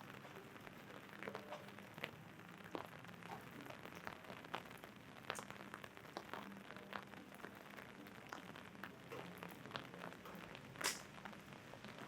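Raindrops tapping irregularly on an umbrella overhead, with a brief louder hiss about eleven seconds in.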